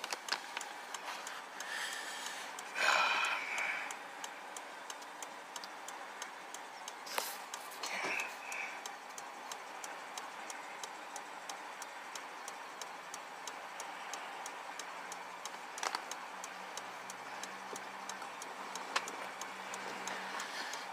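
A car's turn-signal flasher ticking steadily and evenly inside the cabin. A brief louder noise comes about three seconds in, with a few sharp clicks later on.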